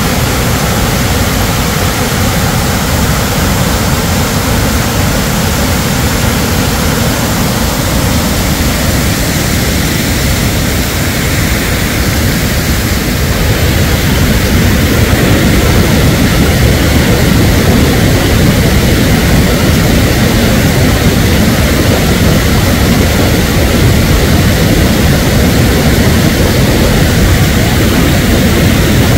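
Muddy floodwater rushing down a washed-out gully in a loud, steady, rumbling torrent. It grows a little louder about halfway through.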